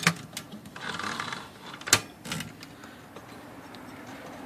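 Sharp metal clicks from the mechanism of a Smith Corona Coronet Automatic 12 portable typewriter being worked by hand: one at the start, a short scraping slide about a second in, then two more clicks about two seconds in.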